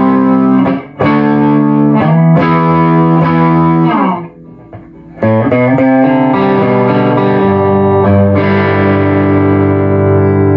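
Epiphone Les Paul electric guitar played through an amp set at the edge of breakup, with the neck and bridge pickups on together and wired out of phase by a Gunstreet 50's phase harness. Several strummed chords, a brief drop about four seconds in, then chords left to ring. This is the out-of-phase tone the player calls throatier.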